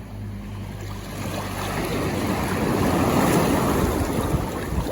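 A wave washing up on the beach: a rush of surf that swells over about two seconds and then eases off.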